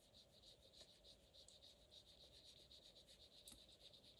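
Faint, soft rubbing of a waterbrush's tip on paper as it wets and blends water-soluble fibre-tip ink, in quick back-and-forth strokes.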